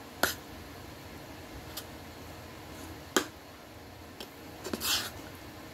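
Metal fork clinking against a plate while eating: two sharp clinks about three seconds apart, a few lighter taps, and a short scraping rustle near the end.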